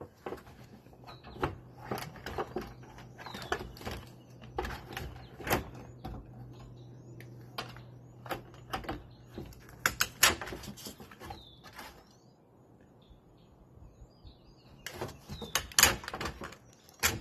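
Black bear breaking and clawing at the bottom of a shed door to force its way out: an irregular run of sharp cracks, knocks and scrapes, pausing for a few seconds about three-quarters of the way through, then starting again. Birds chirp faintly, and a low steady hum runs under the first two-thirds.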